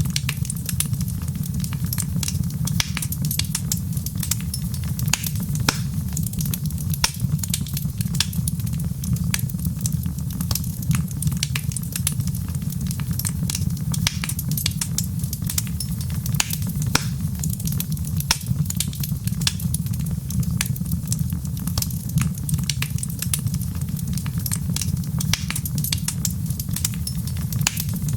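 Wood fire crackling: many irregular sharp pops and snaps over a steady low rumble.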